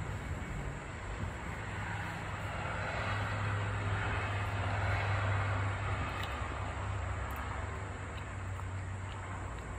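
A motor vehicle passing by: a low rumble and hiss that build to a peak about halfway through and then fade.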